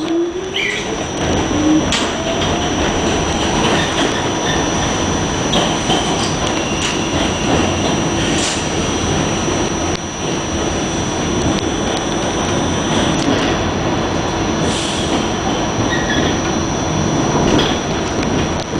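Ride inside a Pullman Standard R46 subway car: the traction motors whine up in pitch as the train gathers speed over the first couple of seconds, then it runs steadily with the wheels clacking over rail joints and a few brief high wheel squeals.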